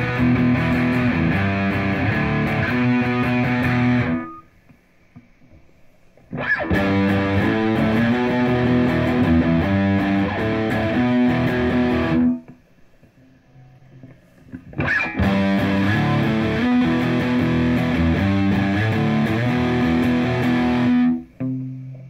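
Distorted electric guitar played through a Boss Katana Artist MkII combo amp on its lead channel at full gain with a tone contour engaged. The same riff is played three times, with a pause of about two seconds between passes where only faint amp hiss remains.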